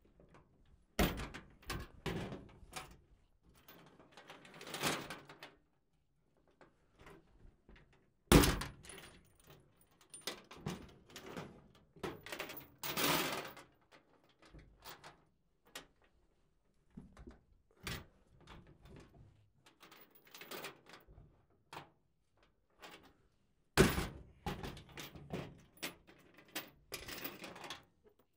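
Bolt cutters cutting steel chain: a few sharp snaps as links are cut, the loudest about eight seconds in and near the end, amid the rattle and clink of the chain being handled on a steel tailgate.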